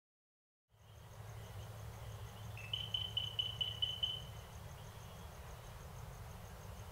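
Night insects and frogs calling over a low steady hum: a faint high chirp repeating evenly, and a run of about seven quick high notes two to four seconds in. The sound fades in just under a second in.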